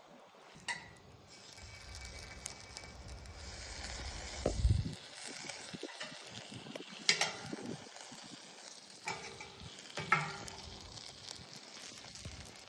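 Wood fire burning in a converted commercial-ashtray fire pit, crackling steadily with sharp pops, the loudest about four and a half, seven and ten seconds in. A low rumble runs under the crackle for the first few seconds.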